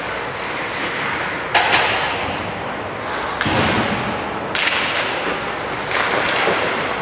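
Ice hockey play in an echoing rink: a few sharp cracks of sticks and puck striking, the loudest about one and a half seconds in and another around four and a half seconds, with a duller thud between them, over the steady hollow noise of the arena.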